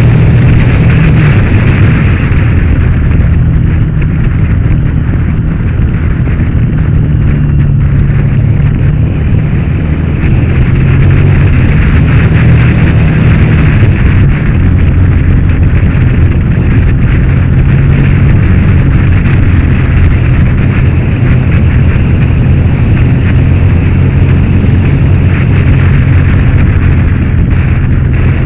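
Motorcycle engine running hard under way, heard close through a bike-mounted camera with heavy wind rush. The engine note steps up and down a few times with throttle and gear changes.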